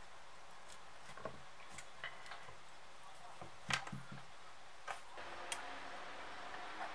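Scattered light clicks and taps of hands pressing masking tape onto a club hammer's head, the sharpest about halfway through. Near the end a short stretch of soft scraping as a screwdriver pries at a paint tin lid.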